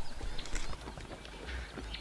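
Light, irregular scuffs and taps of an African wild dog's paws as it scrambles up a sandy riverbank.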